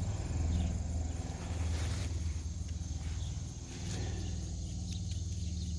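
Insects trilling steadily over a low, even rumble, with a few light clicks.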